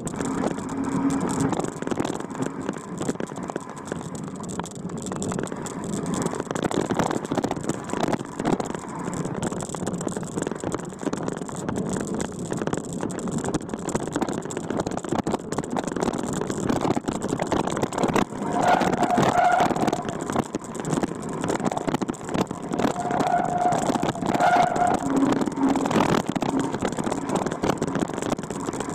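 Vehicle driving over a rough, rutted dirt track: the engine runs steadily under a constant rumble and rattle of the bumpy ground. A few short high tones sound in the second half.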